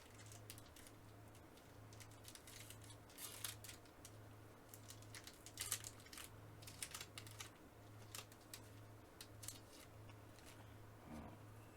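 Faint handling of baseball trading cards and their foil pack: small irregular clicks and rustles as cards are slid, flipped and stacked, over a faint low hum.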